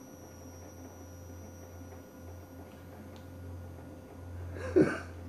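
Steady low electrical hum of room tone, with one short throat sound from a man, like a cough, near the end.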